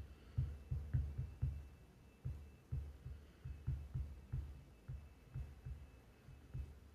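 Stylus writing on a tablet, heard as soft, irregular low thumps of the pen tip on the screen, about two or three a second.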